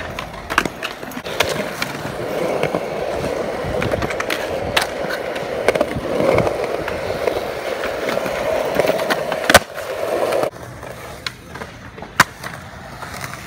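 Skateboard wheels rolling on smooth concrete, with sharp clacks of the board striking the ground, the loudest about nine and a half seconds in. The rolling cuts off abruptly about ten seconds in, and a single sharp clack follows a couple of seconds later.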